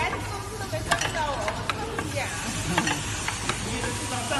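An automatic cosmetic ampoule machine running: its pneumatic cylinders and rotary indexing table make a string of sharp, irregular clicks and clacks over a steady low hum.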